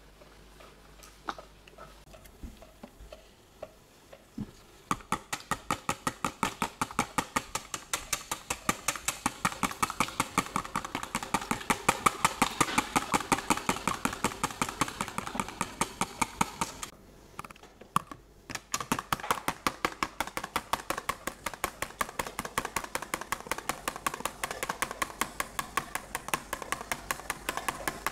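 A hand whisk beating a mixture in a bowl, clicking against the side in quick, even strokes. A few scattered clicks come first, the steady whisking starts about five seconds in, stops briefly about two-thirds of the way through, then resumes.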